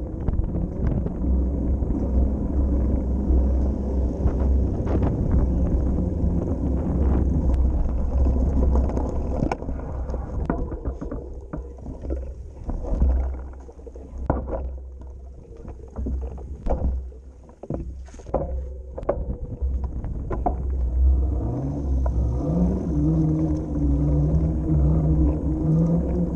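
Wind buffeting the microphone of a camera riding along on a moving bicycle, a heavy low rumble. Midway the wind eases and a run of short knocks and clicks comes through; near the end a low droning tone rises in pitch and holds.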